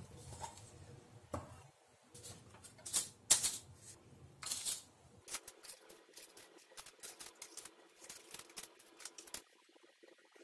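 Paper cupcake liners being separated and pressed into a metal muffin tin: a run of quick, crisp papery rustles and clicks that come thickest in the second half. At the start, a spatula briefly scrapes through batter in a glass bowl.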